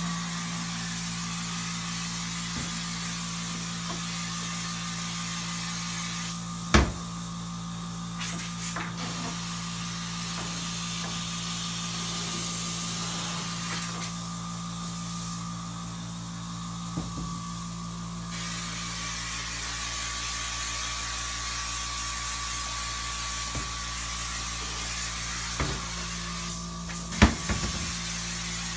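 Insecticide fogger running steadily: a motor hum with a spray hiss, as it fogs kitchen cabinets for German cockroaches. The hiss eases off briefly twice. A sharp knock comes about seven seconds in and another near the end.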